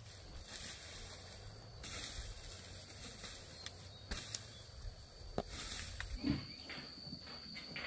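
Outdoor rural ambience: a steady soft hiss with a few faint clicks. A short lower-pitched sound comes about six seconds in, and a thin steady high tone starts at about the same time.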